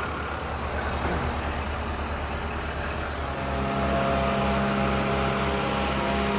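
Finn bark blower truck's engine and blower running steadily while mulch is blown out through the long hose. A little over three seconds in, a louder steady droning hum with a clear pitch takes over.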